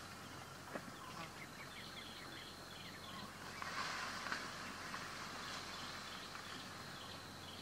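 Outdoor ambience: a steady high drone over a haze of noise, with two spells of short chirping calls, several a second, and a soft click about a second in.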